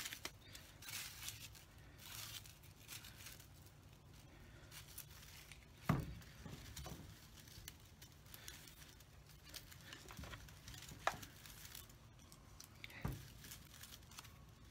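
Green plastic mesh gift wrap and ribbon crinkling and rustling as it is handled and fitted onto a chainsaw's handle, with two soft thumps, about six and thirteen seconds in.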